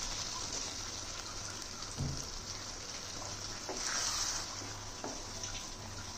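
Chicken curry sizzling in a hot pan as a dairy liquid is poured in and stirred with a wooden spatula: a steady hiss, with a dull knock about two seconds in and a few light taps and scrapes after it.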